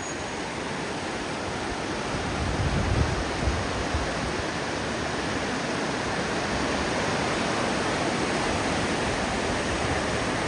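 Fast mountain river rushing over rocks: a steady, even wash of white water. There are a few low bumps about three seconds in.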